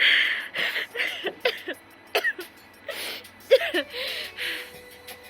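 A woman sobbing: ragged breaths and gasps broken by short, wavering whimpering cries.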